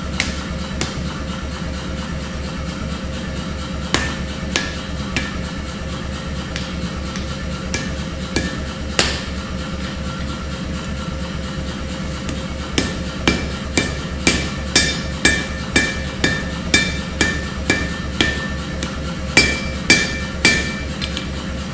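Hand hammer striking a glowing Damascus steel billet of 1075 and 15N20 on an anvil: a few scattered single blows at first, then a steady run of two or three ringing strikes a second, ending in three of the hardest blows. A steady low hum runs underneath.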